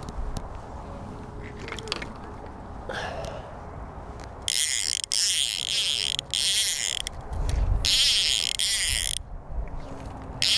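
Fly reel's click-and-pawl check buzzing as line is pulled off it, in two runs of a couple of seconds each, the first about halfway in. Before them there is only softer handling noise.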